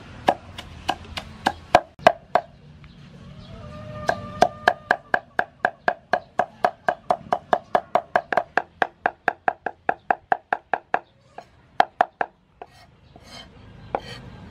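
Cleaver chopping dried red chillies on a round wooden chopping board. A few scattered strikes come first, then a steady run of about five chops a second for several seconds, then a few last strikes.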